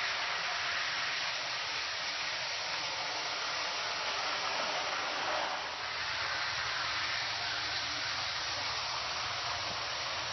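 Toy train running on its floor track, a steady hissing whir throughout, with a faint low hum joining about halfway through.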